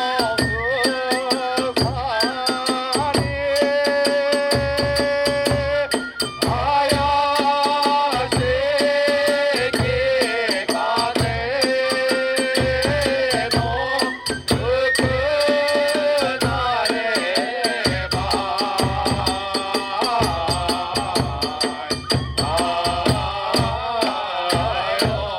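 Kagura hayashi accompaniment: a bamboo transverse flute playing held, ornamented melody notes over a steady beat on a large drum and continuous clashing of small hand cymbals.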